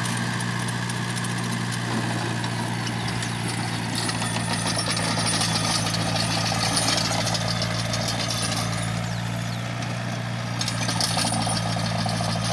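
Small tractor's diesel engine running steadily under load while it pulls a rear-mounted bed-shaping implement through the soil.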